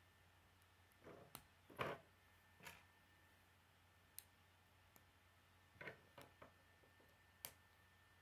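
K'nex plastic rods and connectors being snapped together by hand: scattered sharp plastic clicks, about ten of them, the loudest about two seconds in.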